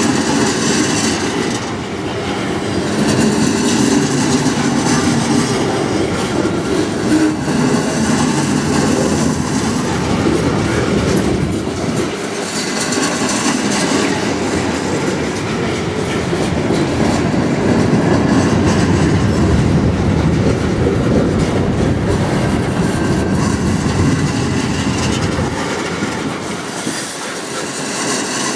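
Freight cars of a long train rolling past: hopper cars and then tank cars, with a steady rumble and clatter of steel wheels on the rails.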